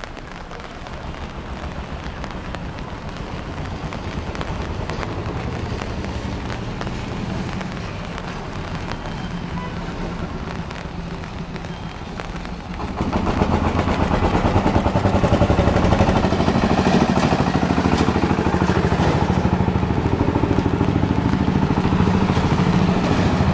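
Street noise of traffic on a wet road, with a heavy low rumble on the camera microphone; it gets louder about halfway through.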